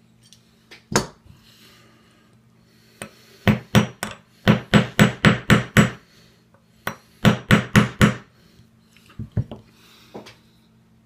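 Hammer tapping a roll pin into an AR-15 gas block to lock the gas tube in place: sharp metal taps, one about a second in, then two quick runs of taps about four a second, and a few lighter taps near the end.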